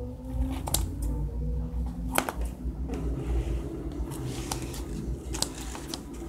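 Scissors snipping through the mesh fabric cover of a plastic football shoulder pad, with a few sharp clicks of the blades and rustling of the fabric and pad as it is handled.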